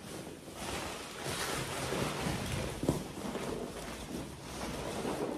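Crumpled brown packing paper rustling and crinkling in swelling waves as it is handled and pulled out of a cardboard box.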